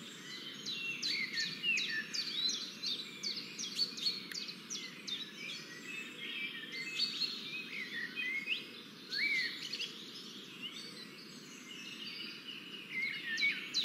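A chorus of many small birds chirping and calling at once, with short, quick, high chirps overlapping throughout over a faint low background hiss.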